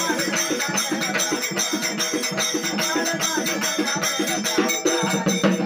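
Live devotional music: voices singing a chant over a hand-played double-headed drum, with jingling, rattling percussion keeping a steady beat.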